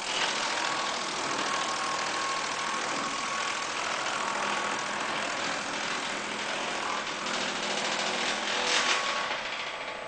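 Disk wood chipper cutting a long wooden pole into chips: a loud, dense grinding noise with a faint steady whine from the machine. The noise peaks near the end and then tails off as the pole is used up.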